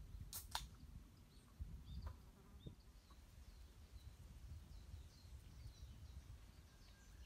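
Faint outdoor ambience: scattered faint, short bird chirps over a low background rumble, with two sharp clicks in quick succession about half a second in.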